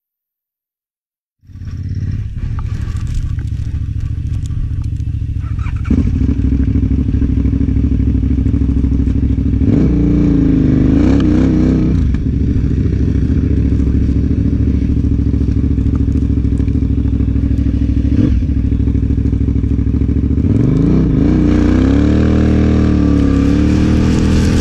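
KTM 1190 Adventure R's V-twin engine running under load in deep sand, heard from on the bike. The sound cuts in about a second and a half in. The revs rise and fall around ten seconds in, and climb in waves near the end as the bike heads up a dune.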